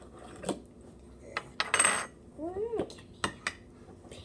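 Metal screw-on lid of a glass jar being worked and taken off: a few clinks of metal on glass and a loud scraping rasp just under two seconds in.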